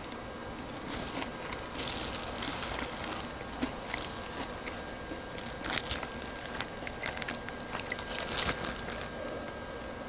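A person chewing crispy fried chicken, with irregular crunches.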